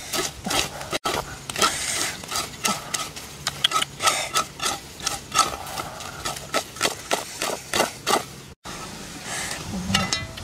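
Quick, irregular knocking and scraping, several strokes a second.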